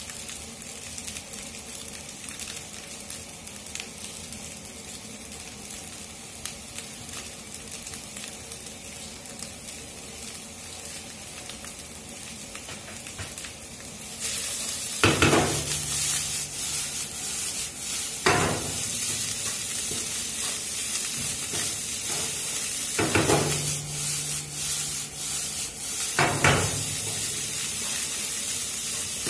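Fried rice sizzling in a frying pan as it is stir-fried with a wooden spatula; the sizzle gets louder about halfway through. The spatula knocks against the pan four times in the second half.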